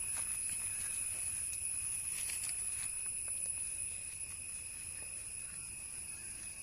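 Insects shrilling: a steady, high, continuous buzz-like drone with two pitches, over faint background noise and a few soft clicks.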